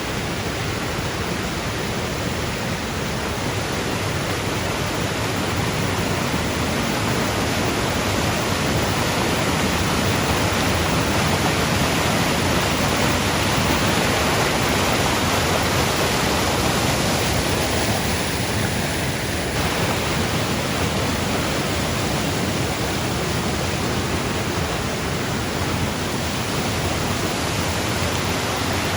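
Black Spout waterfall, a 60-metre fall, pouring steadily: an even, unbroken rush of falling water.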